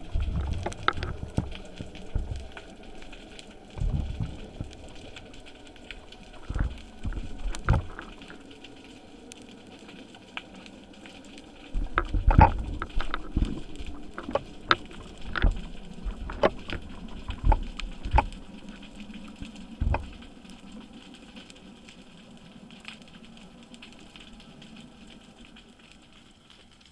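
Underwater sound picked up through a camera housing: a faint crackling hiss with scattered sharp clicks and low knocks, thickest in two bursts, then dying away over the last several seconds.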